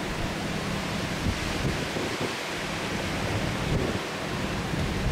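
Steady rush of thunderstorm rain and wind, with gusts buffeting the microphone as a low, uneven rumble.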